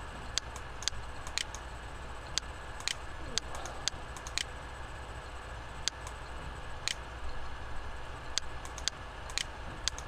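Sharp, dry clicks, mostly half a second apart with some beats skipped, over a steady low hum and hiss.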